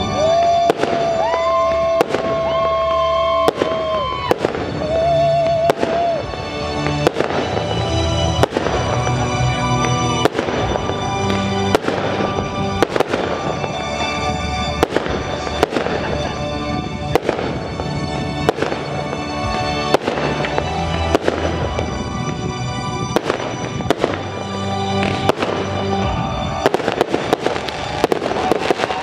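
Fireworks display: aerial shell bursts bang about once a second, crowding together rapidly in the last couple of seconds. Music with long held notes plays underneath.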